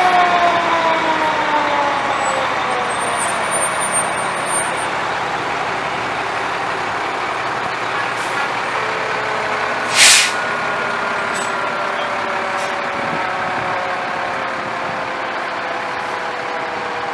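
Fire engines moving slowly past, their diesel engines running steadily. A siren winds down, falling in pitch and fading over the first few seconds. About ten seconds in, one short sharp hiss, like an air brake releasing.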